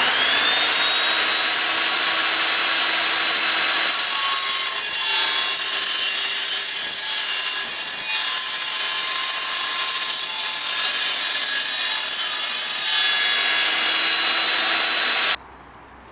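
Evolution Rage 5-S table saw, an 1800 W saw with a 10-inch blade, spinning up with a rising whine and then cutting through mild steel box section with a loud, harsh, high-pitched screech. The sound cuts off abruptly near the end.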